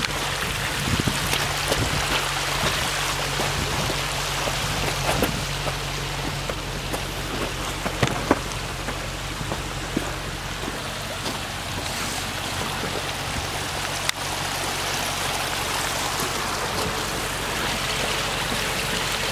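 Range Rover Sport L494 crawling slowly up a steep loose gravel slope, its engine running low under a steady crunch and hiss of tyres on gravel and stones, with a few sharp clicks of stones popping out from under the wheels. The car is struggling for traction after getting stuck.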